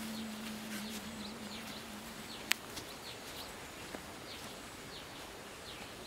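Birds calling with short, repeated falling chirps over a faint steady hum that stops about two seconds in. A single sharp click sounds near the middle.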